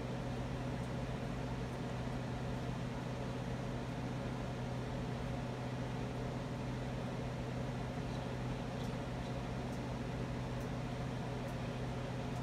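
Spirit box radio static: a steady hiss over a low hum, with a few faint high ticks in the second half.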